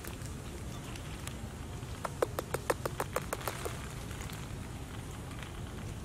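A quick run of about ten sharp crackling snaps, like dry twigs and leaves breaking, about two seconds in, lasting under two seconds, over a low steady rumble.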